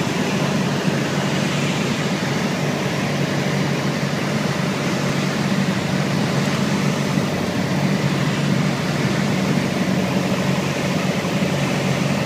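Piper Cherokee 180's four-cylinder Lycoming engine and propeller running steadily on approach to landing, a constant drone with air noise, heard inside the cabin.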